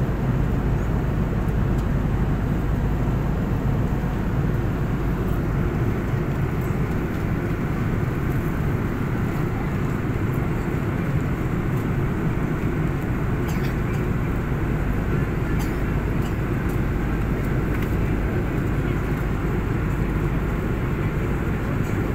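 Jet airliner cabin noise in level flight above the clouds: the engines and rushing air make an even, deep hum that never changes.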